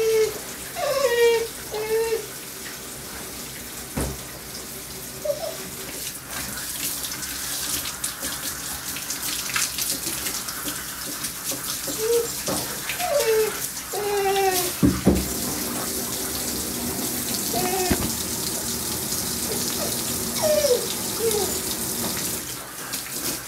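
Water spraying from a tub's handheld bath sprayer, a steady hiss. A few short high cries that rise and fall break through it now and then.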